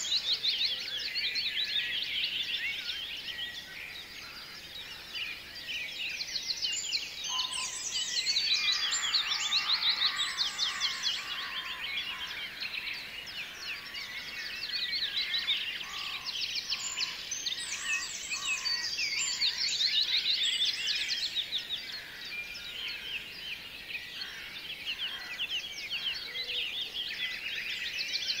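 A dense chorus of small birds chirping, many rapid high calls overlapping without a break, swelling and easing every few seconds.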